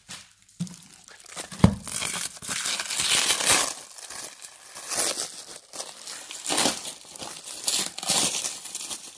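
Packaging around a stack of comic books being crinkled and torn at by hand in repeated rustling bursts, with a sharp click about a second and a half in; the wrapping is hard to get open.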